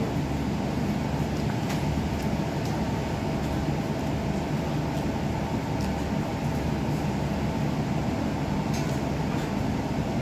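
Steady low background rumble, like machinery or traffic noise in a room, with a few faint clicks scattered through it.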